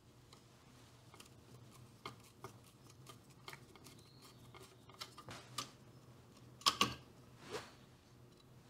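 Faint clicks and scrapes of a screwdriver backing out the small screw of a speaker's metal retaining bracket, then the old speaker being worked loose in a plastic radio case, with two louder clicks about two-thirds of the way through.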